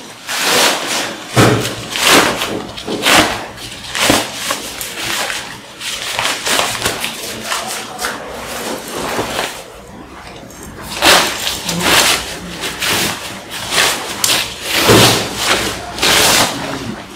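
Polyester tent fabric rustling and swishing in irregular bursts as it is pulled and bunched along a fiberglass frame pole, with a couple of dull bumps.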